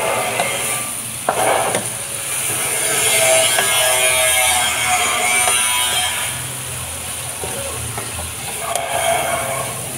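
Cabbage, chilies and meat sizzling as they are stir-fried in a nonstick pan, with a wooden spatula scraping and tossing them against the pan, one louder scrape about a second in.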